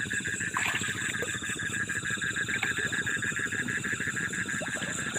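Night chorus of crickets and other insects: a steady, rapid, high trill, with a few short calls cutting in briefly.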